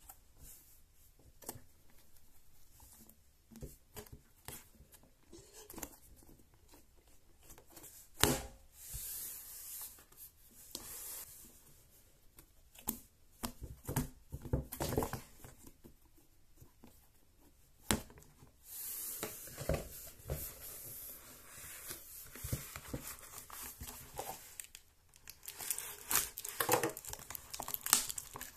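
Unboxing handling noise: cardboard stress-ball boxes and their packaging rustling, crinkling and tearing, with scattered small knocks. There are two sharper thumps, about 8 and 18 seconds in.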